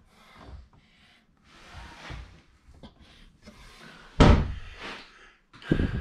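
Bathroom cabinet doors being handled and shut: soft handling noise, then two sharp knocks, one a little past four seconds in and another near the end.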